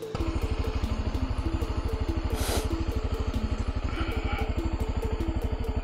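Motorcycle engine idling with a steady, rapid, even beat. A short hiss cuts across it about two and a half seconds in.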